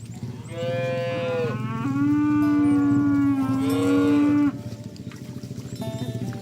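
Cattle mooing: a long call of about four seconds, starting with an upward-and-down bend and then held on one steady pitch before it cuts off abruptly.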